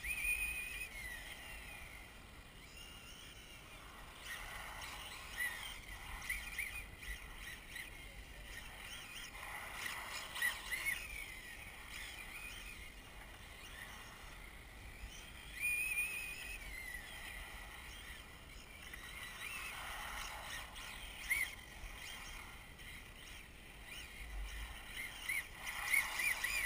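Electric 1/8-scale OFNA DM-1 RC drift car with a 2200 kV brushless motor running laps on asphalt. Its motor whine and tyre noise are faint and swell about four times as it passes closer, loudest near the end.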